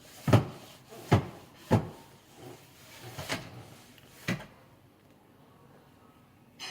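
A series of five dull knocks and thumps, spread irregularly over about four seconds, the first the loudest, then quiet.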